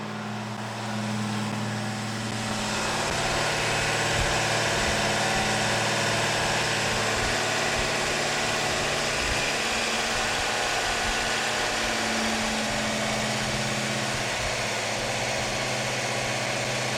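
Freshly rebuilt Mopar 440 big-block V8 running steadily at a held speed during its camshaft break-in, near the end of the 25-minute run. It grows a little louder two to three seconds in, then holds steady.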